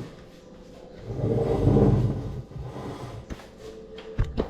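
Scooter parts being handled during reassembly of the rear wheel: a low rumbling scrape about a second in, then a few sharp clicks and knocks near the end.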